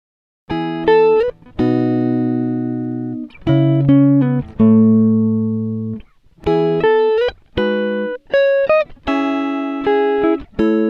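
Background music: a plucked-string, guitar-like tune of short picked notes and held chords, beginning about half a second in.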